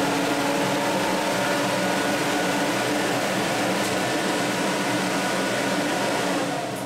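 A TIG welding machine's cooling fan and water cooler running steadily with a faint hum after the arc has stopped, fading away near the end.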